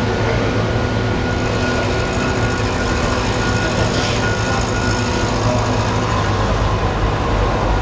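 Rottler F69A CNC machine running steadily as its boring bar cuts a valve seat housing bore in a cylinder head by circular interpolation: a constant mechanical hum with a faint high whine that fades about five seconds in.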